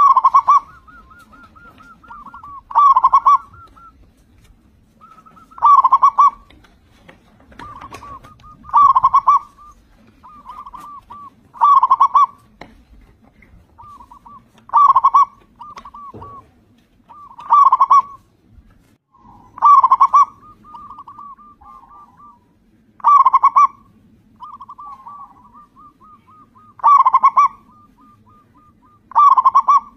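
Local zebra dove (perkutut) singing in full song: a loud cooing phrase about every three seconds, about ten times, with softer runs of quick staccato coos in between.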